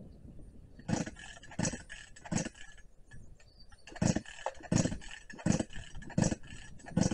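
Husqvarna chainsaw being pull-started without catching: a quick string of recoil-starter pulls, three in a row and then, after a short pause, five more, each a short whir of the engine turning over with no running engine between.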